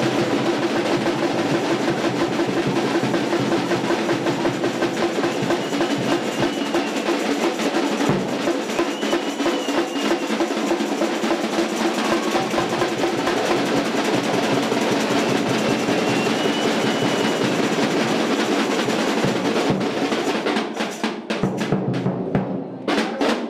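Drums playing a fast, dense rhythm with snare rolls, thinning to a few separate strokes near the end.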